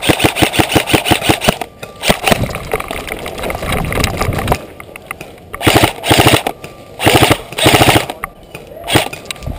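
Airsoft electric rifle (AEG), a KWA KM4, firing on full auto: a rapid rattle of shots in several bursts, a long one at the start, then a denser stretch, then three or four short bursts near the end.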